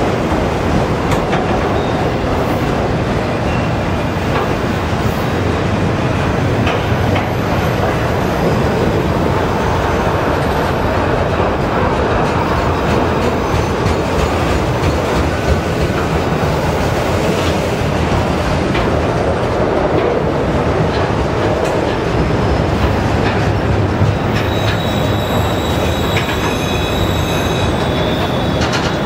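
Freight train of autorack cars rolling past close by: a steady rumble and rattle of steel wheels on the rails, with a thin high whine joining in near the end.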